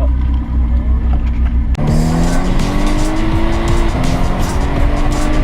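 Volkswagen Golf R heard on track: a low steady engine rumble, then, a little under two seconds in, the engine note jumps in and climbs under hard acceleration. It drops at a gear change about four seconds in and climbs again.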